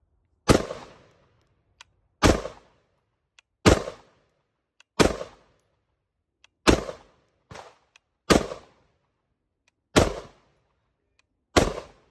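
AR-15 rifle in 5.56 fired eight times in slow, steady succession, about one shot every second and a half, each crack followed by a brief echoing tail.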